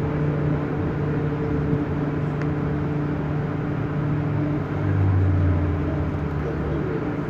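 MTR M-Train (Metro Cammell electric multiple unit) running alongside a station platform, heard from inside the car: a steady rumble from the running gear with the hum of the electric traction equipment, which grows louder for about a second around five seconds in.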